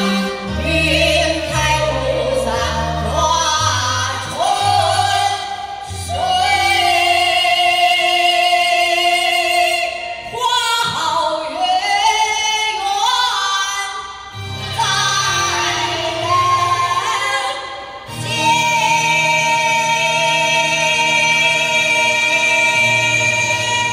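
Women singing a song through microphones over an amplified musical accompaniment, with long wavering notes and a long held note in the last few seconds.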